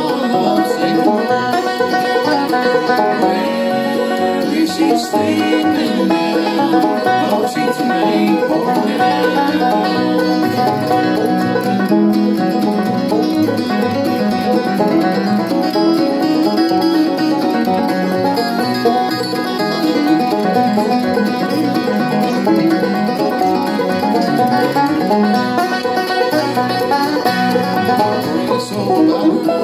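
Solo banjo picked steadily, playing a tune through without a break.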